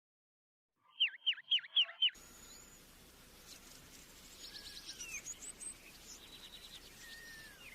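A sirtu (sridung) songbird sings a quick run of five loud, repeated swooping notes about a second in. After a sudden cut to a hissy recording, fainter trills and down-slurred chirps of birdsong follow.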